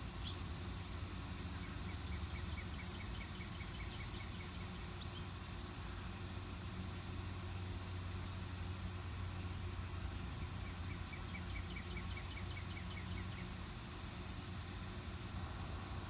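A steady low mechanical hum, like an engine idling, with two runs of rapid, even-pitched bird chips at about five a second, one a couple of seconds in and one near the end.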